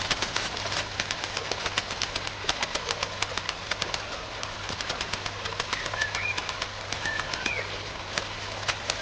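A fast, irregular run of sharp clicks and ticks of varying strength, with two short chirps, like a small bird's call, about six and seven and a half seconds in.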